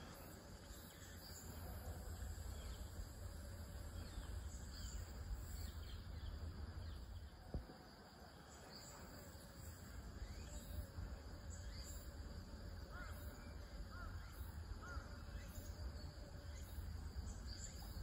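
Quiet pond-side ambience: a steady low rumble under faint insect chirring, with three short, soft bird chirps in the last third.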